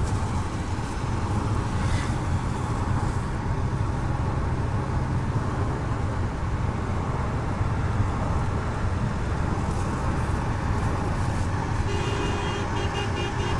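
Steady engine and road noise heard inside a car's cabin while it drives, a low drone with tyre hiss. A few steady higher tones come in near the end.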